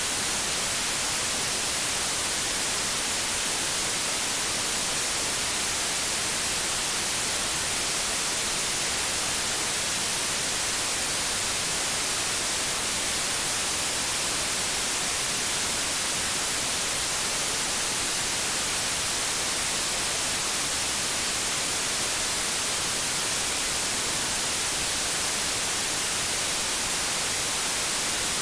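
Steady white noise: an even, unchanging hiss, strongest in the high frequencies.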